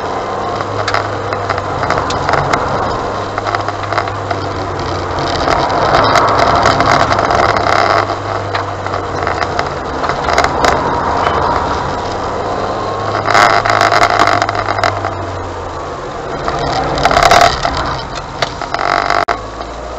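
Car engine running with road and tyre noise, heard from inside the car as it drives across tarmac. A steady low engine hum drops away about three quarters of the way through, and two short bursts of louder rushing noise come near the end.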